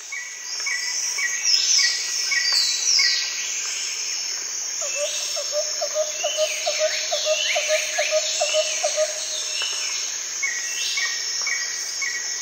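Forest ambience: a steady high insect drone with many birds calling over it, in repeated short chirps and quick falling whistles. In the middle a lower trill of about fifteen quick notes runs for a few seconds.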